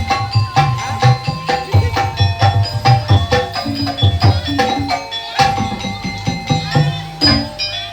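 Gamelan-style accompaniment for a kuda lumping dance: kendang hand drums beat a quick, steady rhythm under ringing pitched metal percussion.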